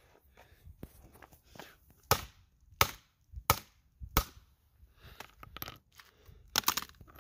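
A small tablet in a hard case being struck against concrete pavement: four sharp, hard knocks about two-thirds of a second apart from about two seconds in, then a quick cluster of knocks near the end.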